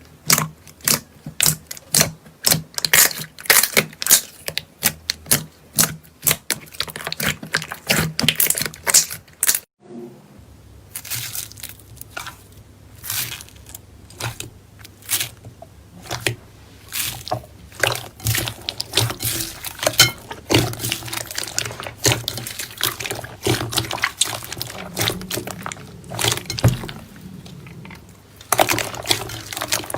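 Slime being squeezed, poked and stretched by hand, making rapid sticky clicks, crackles and pops. The sound breaks off briefly about ten seconds in, then carries on in the same way.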